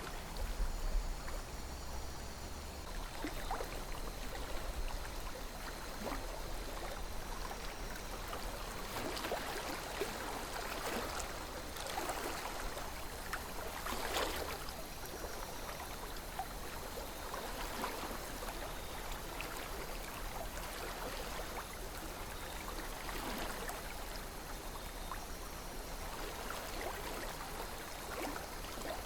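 River water flowing steadily, with small gurgles and splashes scattered through it and a few stronger ones around the middle.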